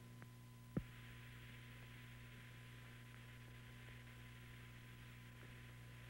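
Near silence: a steady low hum with a faint hiss, broken by one short click just under a second in.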